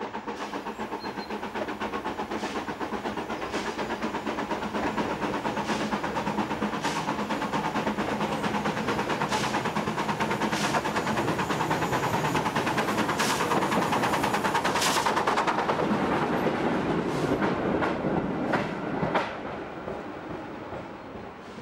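Steam tram locomotive running, a fast even chuffing and rail clatter that grows louder for most of the time and then fades away near the end, with scattered sharp clanks.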